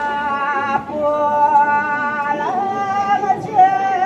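Sung Balinese ceremonial chant: a voice holding long, slightly wavering notes, stepping down in pitch about a second in and back up near two and a half seconds.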